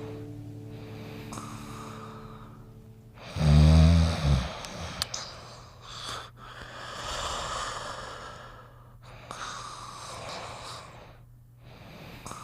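A sleeping dog snoring: one loud, deep snort about three and a half seconds in, then long, slow, wheezy breaths in and out.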